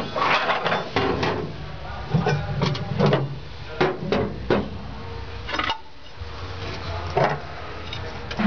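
A string of irregular knocks and clicks, about a dozen, some close together, with a sharp one at the very end.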